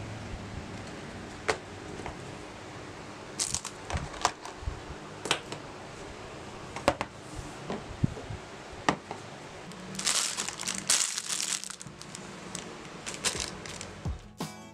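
An XP-Pen drawing tablet and its cardboard box being handled: scattered light knocks and taps, with a stretch of crinkly packaging rustle about ten seconds in.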